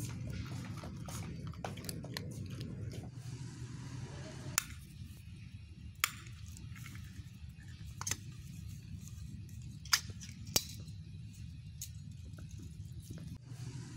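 A cat chewing and crunching dry kibble, a dense run of small crunches during the first few seconds, over a steady low hum. Later come a handful of isolated sharp clicks, a second or two apart.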